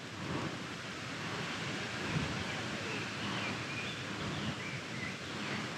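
Wind on the microphone: a steady rushing noise with a fluttering low rumble, and a few faint high chirps in the middle.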